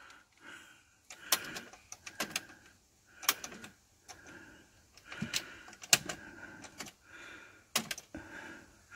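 A series of sharp clicks and short mechanical clunks, roughly one every second, from buttons, switches and tape-deck mechanisms being worked on an old AWA stereo system just after it has powered up.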